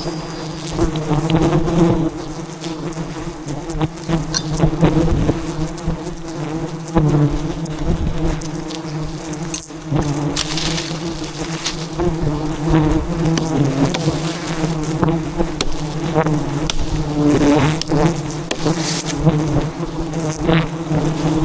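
A dense swarm of giant honeybees (Apis dorsata) buzzing loudly and steadily around their disturbed hive. A few brief bursts of noise stand out about halfway through and near the end.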